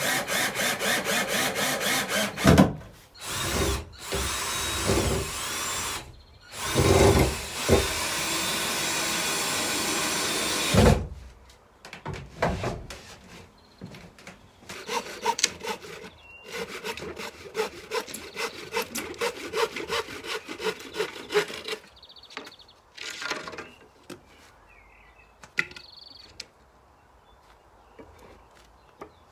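Cordless drill driving screws into the plywood front of a wooden bench, in several bursts, the longest about four seconds and ending sharply about eleven seconds in, with a loud knock a couple of seconds in. After that, quieter rhythmic rasping tool work for several seconds, then scattered small knocks.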